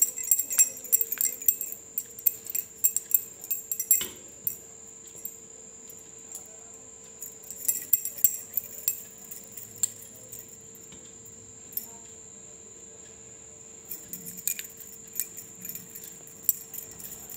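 Light jingling and clinking in bursts as hands pinch dough into balls and drop them into a steel bowl, with quieter gaps between the bursts. A faint steady hum runs underneath.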